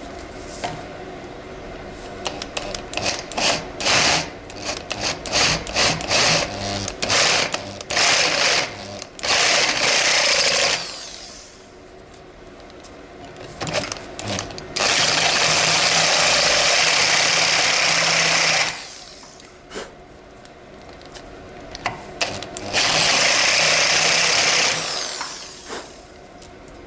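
Handheld electric drill counterboring screw holes in a mild steel jaw blank. First come many short bursts of cutting, then two longer steady runs of a few seconds each, a motor hum under a harsh cutting hiss.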